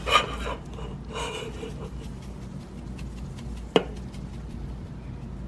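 A metal meat fork scraping and knocking against a pressure cooker's inner pot as seasoned pork ribs are moved around. There are two short scrapes in the first two seconds and one sharp knock nearly four seconds in.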